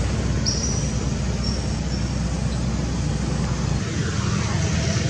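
Steady rumble of road traffic, with a faint high thin tone for a couple of seconds near the start.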